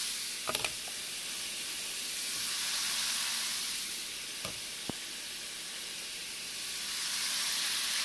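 Strips of steak sizzling steadily in hot oil in a frying pan. Metal tongs click sharply against the pan several times about half a second in, and twice more around four and a half to five seconds.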